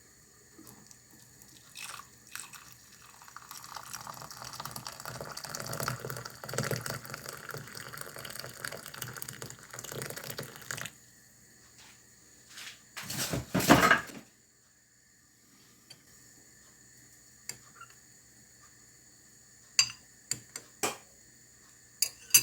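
Liquid pouring and splashing for about ten seconds, followed by a short loud burst of noise about 13 seconds in and a few light clicks near the end.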